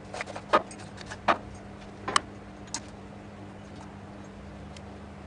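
Sharp metallic clinks and taps, about five in the first three seconds, as the cutting tool is fitted and tightened on a CNC milling machine, over a steady low machine hum.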